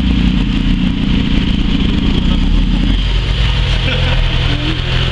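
Motorcycle engines running close by with a steady low rumble that drops to a lower, quieter hum about three seconds in.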